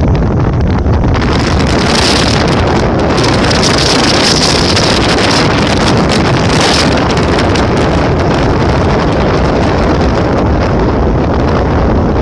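Wind rushing over the microphone of a phone in a moving vehicle, mixed with road and vehicle noise. The hiss grows sharper for several seconds in the middle, then settles back to a steady rush.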